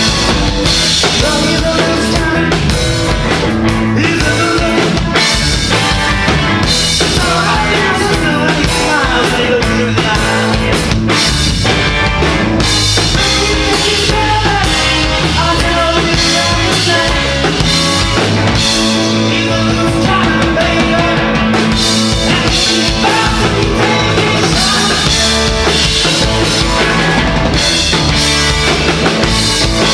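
A rock and roll band playing live, with the drum kit prominent in the mix.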